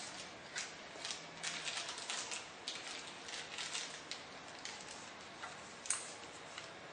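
Irregular light clicks and taps of small hard objects, several every second, with one sharper click near the end.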